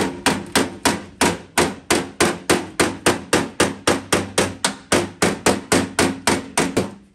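Body hammer tapping out a dent in an old steel car fender: quick, even blows, about three a second, each with a short metallic ring from the sheet metal. The hammer is being used like a planishing tool to work down high spots in the panel.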